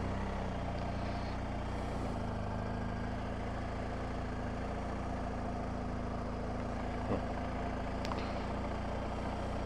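BMW R 1250 GS Adventure's flat-twin engine running steadily as the bike rolls slowly along at walking-to-jogging pace.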